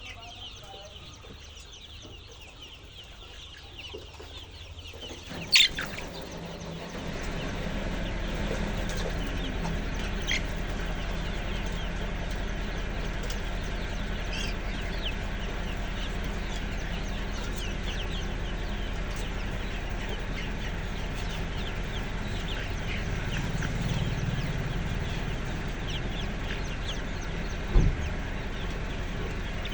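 Chickens clucking, with many short calls throughout. A steady low hum comes in about seven seconds in, and two sharp knocks stand out, one about five seconds in and one near the end.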